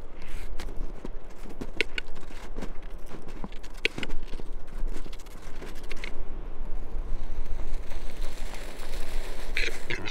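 Displaying male western capercaillie (wood grouse) giving scattered sharp clicks, followed from about halfway by a soft hissing. A low steady hum runs underneath.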